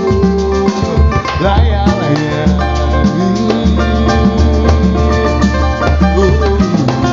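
Samba group playing an instrumental passage: plucked strings over a steady percussion beat with a deep bass.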